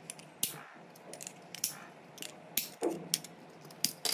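Sharp, irregular plastic clicks and snaps as a pry tool works around the rim of a small plastic fan's round cover, prising it loose from the housing.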